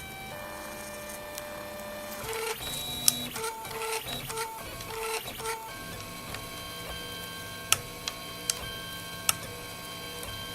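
Printrbot+ 3D printer's stepper motors whining as the print head moves, the steady tones changing pitch from move to move. A run of quick short moves comes about a third of the way in, and a few sharp clicks follow in the second half.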